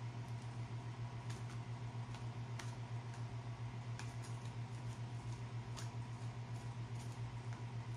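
Low steady hum that pulses fast and evenly, with faint, irregular clicks over it.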